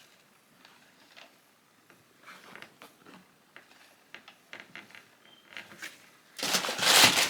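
Handling noises from unboxing sneakers: faint scattered rustles and light taps of packaging. About six and a half seconds in comes a loud rustle of packaging paper lasting about a second.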